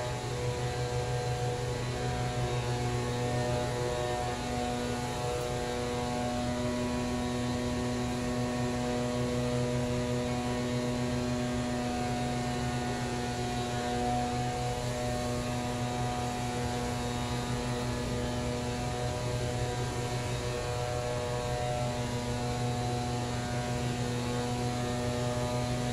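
Casablanca Zephyr ceiling fan running steadily, its motor giving a constant hum made up of several steady tones.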